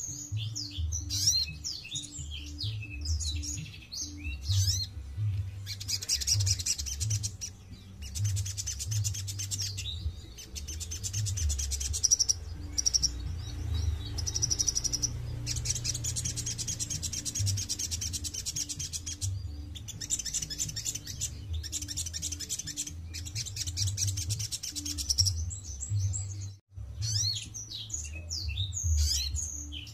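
Sunbird (sogon) singing: sharp high chirps at first, then long runs of very fast, high trills broken by short pauses, then chirps again near the end. This is the kind of call song used to stir other songbirds into singing.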